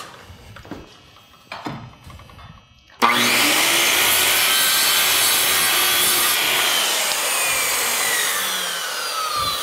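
A few light knocks, then about three seconds in a circular saw starts at once and cuts through the bottom nub of a wooden rafter tail. From about halfway, the blade's whine falls steadily in pitch as it winds down.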